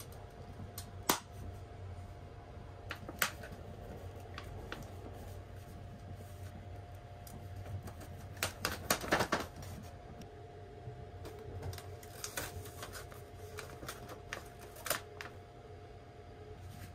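Plastic bento tray and paper sleeve handled while the string tie is undone: scattered clicks and crinkles, with a denser burst of crackling about eight to nine seconds in. Under it runs the steady low hum of the moving sleeper train.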